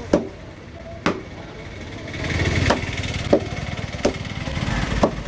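Heavy curved knife chopping down through a fish onto a wooden table, cutting it into steaks: six sharp chops at uneven intervals.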